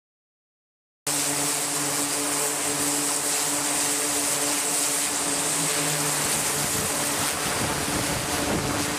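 Twin-turboprop aircraft's engines and propellers droning steadily as it lands on an aircraft carrier deck, with a strong high hiss over the drone. The sound cuts in suddenly about a second in.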